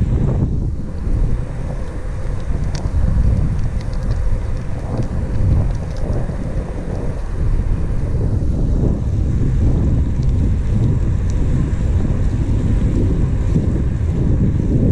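Wind rushing and buffeting over the camera microphone of a moving bicycle, a loud, uneven low rumble with a few faint ticks.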